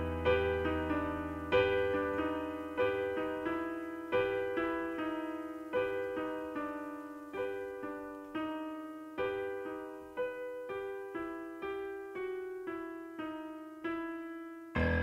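Solo piano playing a slow, quiet melody of single struck notes and light chords, each note dying away before the next, closing the song with a fuller chord near the end.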